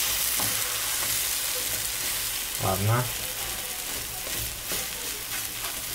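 Potato-and-egg omelette (tortilla española) sizzling steadily in oil in a frying pan. A slotted turner and a wooden spatula scrape and tap against the pan as they push the broken omelette back together.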